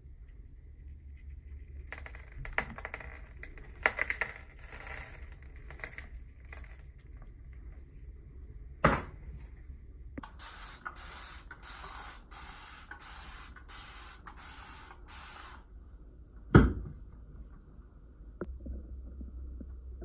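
Hands at work on an aquascape build: scattered scrapes and clicks, two sharp knocks about 9 and 16 seconds in, and a stretch of repeated hissing like spraying in the middle, over a steady low hum.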